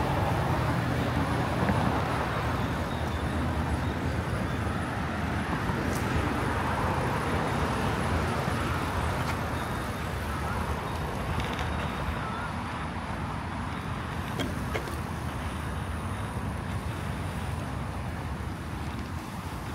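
Steady road traffic noise from the busy multi-lane road alongside, easing off a little in the second half, with a few faint clicks.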